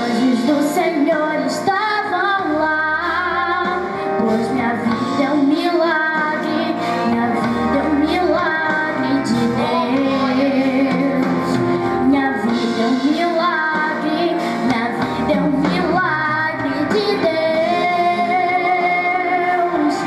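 A young girl singing a gospel worship song into a microphone over instrumental accompaniment.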